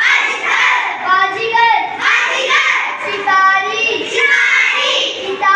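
A child's voice reading Hindi words aloud from the board, one word after another in a sing-song way.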